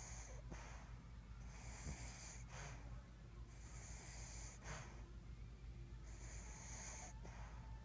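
Snoring: about four drawn, hissing in-breaths roughly two seconds apart, each followed by a short sharp out-breath.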